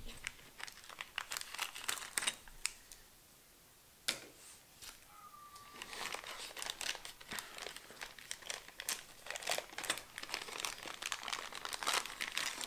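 Plastic packaging bags crinkling and tearing as they are cut open and handled, in crackly bursts. There is a pause about three seconds in, then a sharp click about four seconds in, and the crinkling grows denser over the second half.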